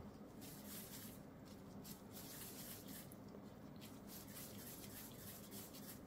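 Faint rustling of thin disposable gloves and soft squishing of mashed potato as it is pressed and rolled into balls by hand, with a low steady hum underneath.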